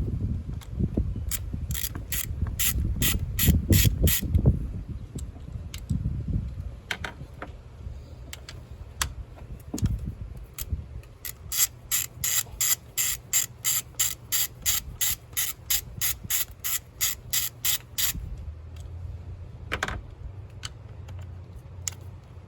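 A socket ratchet with a 10 mm socket clicking in quick, even runs of about three to four clicks a second as the ignition coil bolts are undone. There are low clunks and rumbles of handling in the first few seconds.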